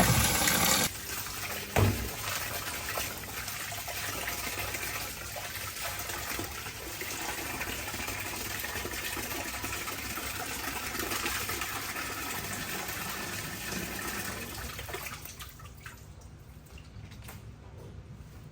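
Water running: a loud gush in the first second, then a steady flow for about fifteen seconds that stops near the end, with a single knock near the start.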